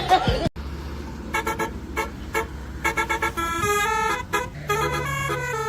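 A song breaks off abruptly about half a second in. Then a telolet horn, a multi-tone air horn, toots a quick run of short notes that change pitch, sparse at first and rapid from about three seconds in, over a low steady engine hum.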